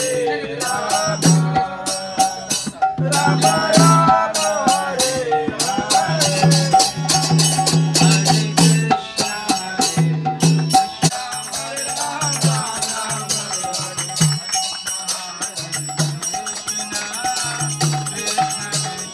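Devotional kirtan: men singing to a harmonium, with a mridanga drum and brass hand cymbals (karatals) keeping a steady, rhythmic beat.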